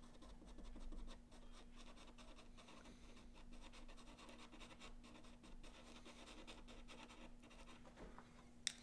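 Soft pastel pencil scratching faintly on paper in many short strokes as light green is worked into a charcoal drawing. A single sharp tick near the end.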